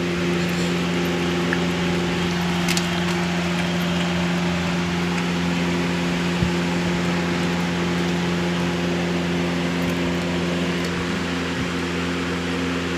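A steady machine hum: a constant low drone with an even hiss over it, unchanging throughout.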